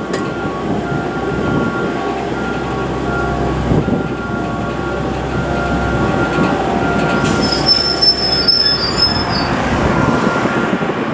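Shinkansen railcar rolling slowly over depot track under a rail-car mover, its wheels squealing on the rails in thin, wavering tones over a low rumble, with a sharper high squeal about eight seconds in.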